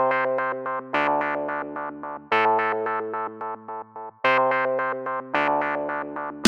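Background music: keyboard chords in an electric-piano sound, a new chord struck about every second with quick repeated notes in between.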